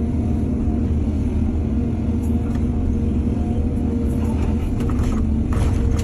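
Excavator diesel engine running steadily with a constant low rumble and a steady whine. Brief clattering sounds come about two seconds in and again near the end.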